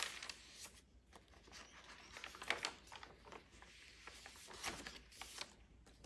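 Faint rustling of heavy paper pages in a handmade journal being turned by hand, in a few short brushes.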